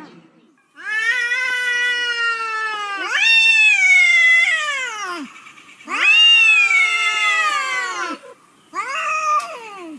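Domestic cat giving four long, drawn-out meows in a row, each rising in pitch at the start and sliding down at the end. The last meow is shorter than the others.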